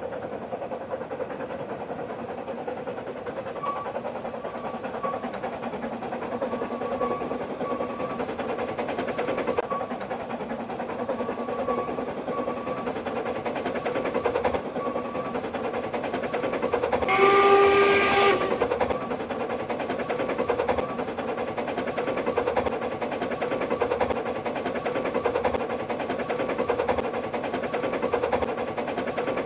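Narrow-gauge steam locomotive working a train with a steady, even exhaust beat. A little past halfway it gives one whistle blast, about a second and a half long.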